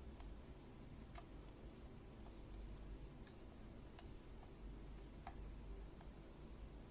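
Faint, sparse clicks a second or two apart from handling and setting the 4-digit code lock on an escape-room prop, over a faint room hush.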